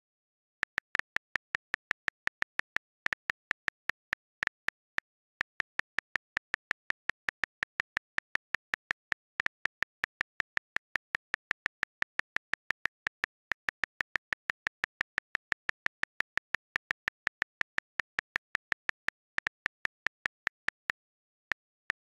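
Rapid repeated taps on a calculator button in the iPhone Calculator app, each giving a short, sharp key click, at about five clicks a second. The clicks pause briefly twice, about five seconds in and near the end.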